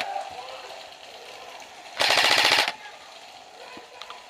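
An airsoft rifle fires one short full-auto burst of rapid, evenly spaced shots about two seconds in, lasting under a second.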